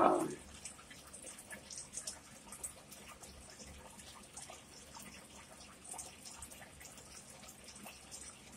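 Close-miked chewing of pizza with the mouth closed: faint, scattered wet clicks and smacks of the mouth. A brief loud vocal sound comes right at the start.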